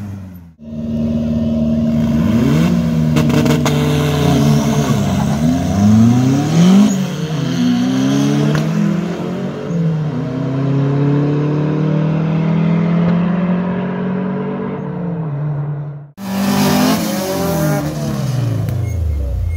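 Drag race car engines running hard, their pitch repeatedly climbing and dropping as they rev and shift, more than one engine at once. The sound breaks off abruptly twice, about half a second in and about sixteen seconds in, then picks up again.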